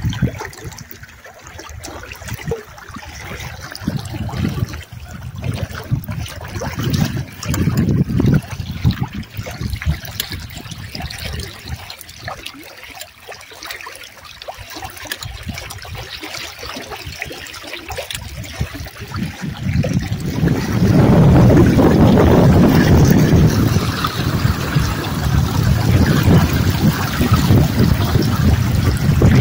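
Water lapping and slapping against the hull of a sailing canoe under way in choppy water. About twenty seconds in, it gives way to a louder, steady rush.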